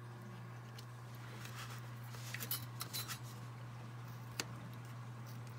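Light scraping and clicking of a hobby knife and steel ruler on a cutting mat as a strip of electrician's tape is trimmed, with a cluster of faint scratches around the middle and one sharp click near the end, over a steady low hum.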